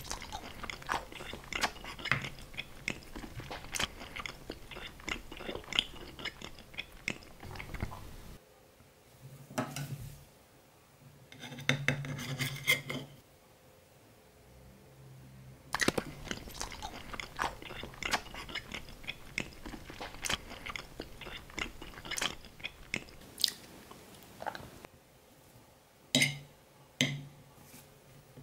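A person chewing and crunching food close to the microphone: a rapid run of small crunching clicks, with two short pauses partway through.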